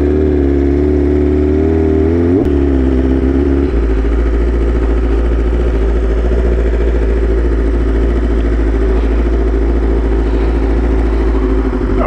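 BMW S1000RR sportbike's inline-four engine running at low road speed. It blips up in pitch briefly about two and a half seconds in, then runs on steadily at a lower note.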